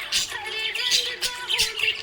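Small pet parrots chirping and twittering in quick high-pitched bursts several times a second, over background music with held notes.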